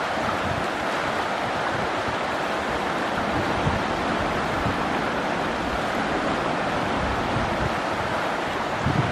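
Fast-flowing river water rushing over rocks: a steady, unbroken rush, with a brief low bump near the end.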